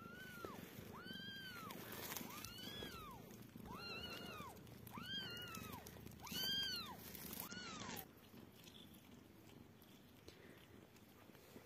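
Newborn kitten mewing, about seven short high-pitched cries roughly one a second, each rising and falling, stopping about eight seconds in.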